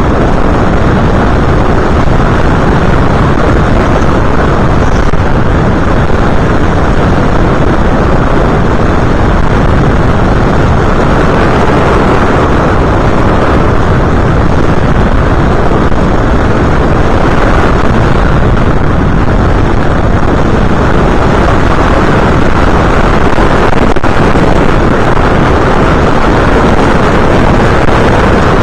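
FPV model aircraft in flight, heard through its onboard camera: a loud, steady rush of wind over the microphone mixed with motor and propeller noise, unchanging throughout.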